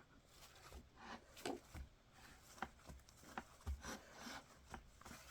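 Faint rubbing of a wipe across an iPad's screen, with a few soft taps and scuffs as it is wiped clean of sanitizer.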